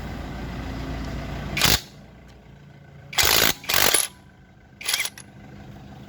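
Impact wrench, a copy of a Makita, working a very tight fastener. A steady run ends in a loud burst about two seconds in, followed by three short loud bursts.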